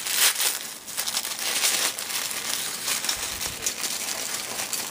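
Thin white tissue paper crinkling and rustling as hands pull it apart and unwrap it, with irregular crackles throughout.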